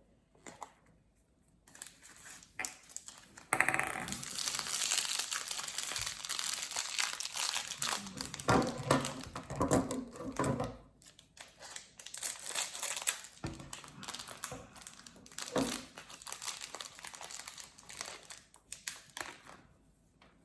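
Plastic toy packaging crinkling and rustling in the hands as it is unwrapped. It starts faintly, turns loud a few seconds in, and carries on in uneven spells with short pauses.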